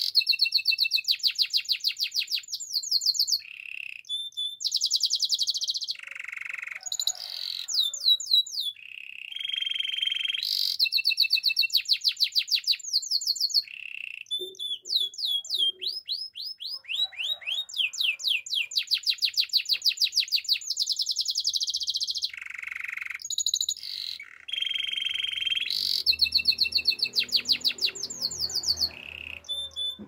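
Domestic canary singing a long, continuous song: fast trills of rapidly repeated high notes alternating with buzzier phrases, switching to a new phrase every second or two with brief pauses between.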